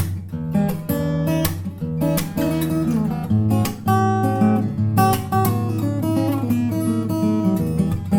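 BELLAME W-180 guitar being strummed, chords ringing between frequent pick strokes and changing every second or so.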